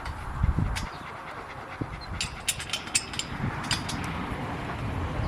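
Light metal clicks and clinks of kennel clamps and bolts being fitted, clustered between about two and four seconds in, over a dog panting.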